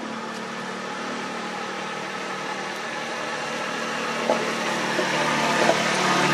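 A motor vehicle's engine running with a steady low hum that grows louder toward the end as it comes nearer.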